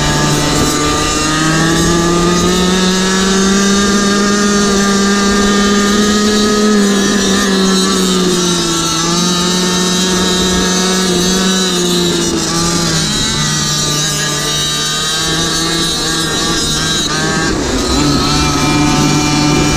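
GoPed GoQuad's small two-stroke engine running at high revs under racing load. Its pitch climbs soon after the start, holds high, sags and wavers through the middle, and picks back up near the end as the throttle is worked around the track.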